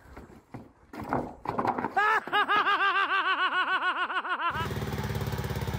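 Rapid high-pitched laughter, a run of about eight quick pulses a second lasting about two seconds. It cuts off suddenly to a steady engine running.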